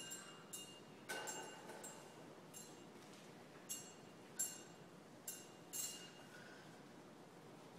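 Small altar bells struck in a loose series of faint clinks, each leaving a brief ringing tone, as the priest blesses with the monstrance at Benediction.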